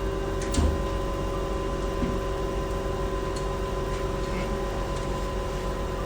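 Cryolipolysis slimming machine running during treatment, a steady mechanical hum with fixed tones, with one short low thump about half a second in.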